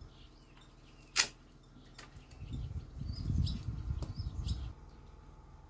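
Outdoor yard ambience: a single sharp click about a second in, then about two seconds of uneven low rumbling, with a few faint bird chirps.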